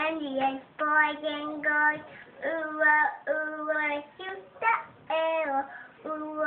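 A young girl singing a song on her own, in short phrases of mostly level held notes with brief gaps between them.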